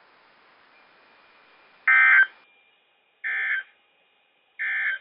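NOAA Weather Radio EAS/SAME end-of-message data bursts: three short digital squawks about 1.3 s apart, the first loudest, signalling that the severe thunderstorm warning broadcast has ended.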